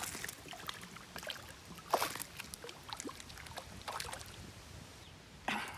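Hooked bass splashing and thrashing at the water's surface as it is reeled to the boat, with light sloshing between the splashes. The clearest splash comes about two seconds in, and another comes near the end.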